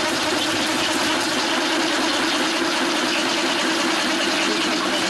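Multi-spindle drilling machine running, its several drills cutting into a metal plate at once: a steady mechanical hum with a broad hiss of cutting noise over it.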